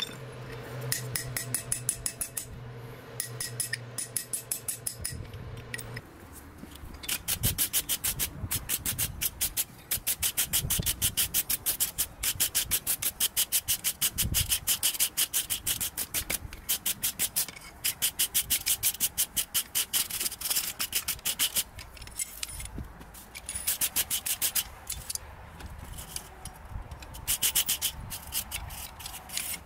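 Hand-held wire brush scrubbing a forged steel bottle opener on an anvil to clean off forge scale, in quick back-and-forth strokes that come in long runs with short pauses. A steady low hum sounds under the first six seconds.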